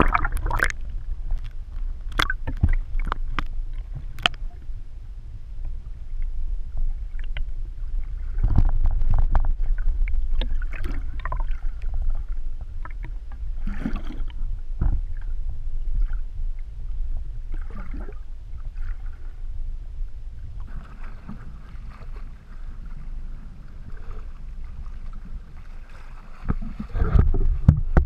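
Muffled sea water sloshing around an underwater camera beside a rowing boat's hull: a steady low rumble with scattered knocks and clicks, growing louder and splashier near the end as the camera nears the surface.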